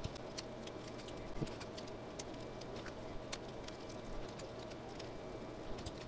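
Faint handling sounds of heat-resistant tape being pulled and pressed over sublimation paper wrapped around a ceramic mug: scattered small ticks and crinkles, with a couple of soft knocks.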